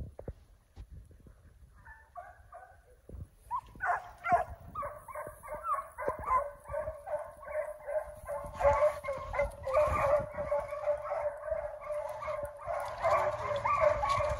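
Young foxhounds baying in full cry as they run a chase, several voices overlapping in a quick, regular rhythm. A few calls start about two seconds in, and the chorus swells after that.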